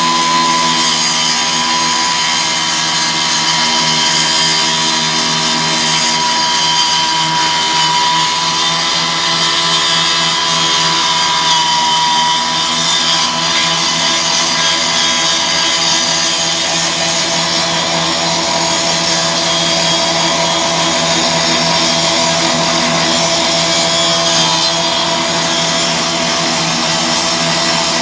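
Two-stroke rotary rescue saw (cut-off saw) running flat out, its blade cutting into a car's sheet-metal hood. It makes a loud, steady, high-pitched whine whose pitch wavers slightly as the blade bites.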